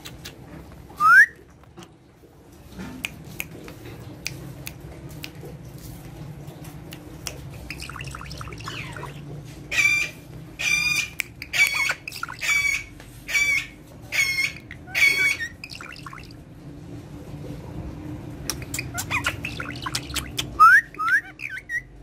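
Indian ringneck parakeet calling: a sharp rising whistle about a second in, then a run of about seven short, loud squawks evenly spaced in the middle, and a few more calls with rising whistles near the end.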